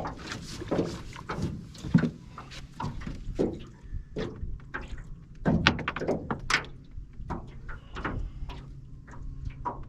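Scattered knocks and thumps of things being handled in a fishing boat, over a steady low hum.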